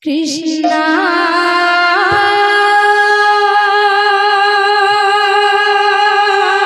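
A woman singing kirtan into a microphone: one long held note that steps up about half a second in, quavers for the first couple of seconds, then steadies.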